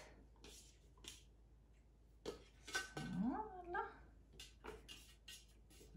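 Light clicks and knocks of the Thermomix mixing bowl being handled as the kneaded dough is taken out onto a floured mat. About three seconds in comes a short rising, wavering call.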